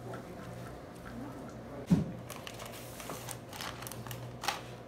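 Metal spoon working shredded chicken filling in a glass baking dish: soft scraping with a scattering of light clicks and taps, and one louder knock about two seconds in.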